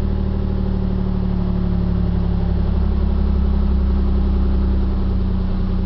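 1993 Nissan 300ZX's V6 engine idling steadily through an aftermarket Apexi Hybrid Megaphone exhaust, a low, even exhaust drone.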